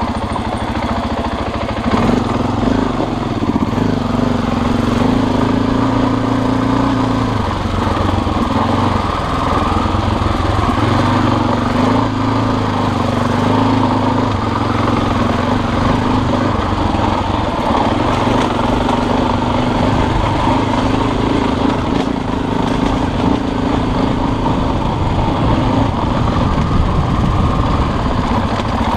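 Husqvarna dirt bike engine running at low revs on the move, its note stepping up and down every few seconds as the throttle opens and closes.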